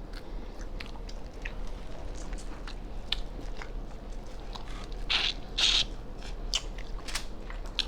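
Close-up eating sounds: chewing and biting with scattered small clicks and crunches, and two short louder noisy bursts a little past halfway.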